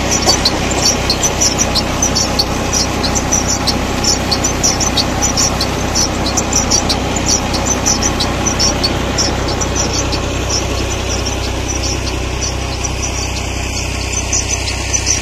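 Diesel engine of a New Holland tractor running steadily under load, driving a belt-driven tubewell water pump. A fast, high ticking sounds a few times a second over the engine.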